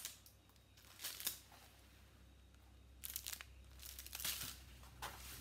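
Plastic packaging crinkling in several short bursts as a strip of bagged diamond-painting drills and a rolled canvas in its plastic wrap are handled.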